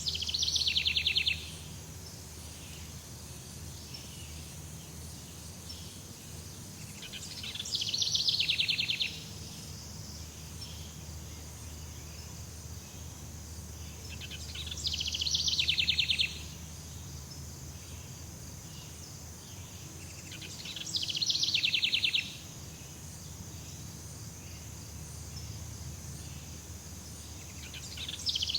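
Jungle ambience: an animal's rapid pulsed trill repeats about every seven seconds, each call swelling over about a second and a half and then cutting off sharply. Under it runs a steady high insect drone and a low hum.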